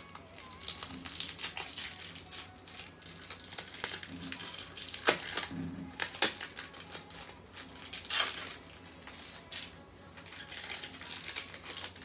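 Paper wrapping and plastic card sleeves rustling and crinkling as a packet of photocards is unwrapped by hand, with several sharper crackles through the middle.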